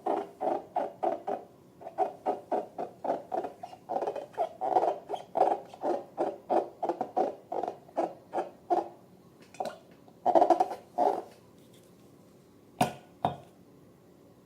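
Slime being squeezed and worked by hand in a steady rhythm, about three squelches a second, with a short break before a final flurry. Two sharp clicks come near the end.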